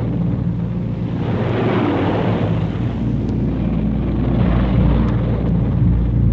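Boeing B-29 Superfortress's radial piston engines droning in a low flypast. The noise swells about two seconds in and again near the end.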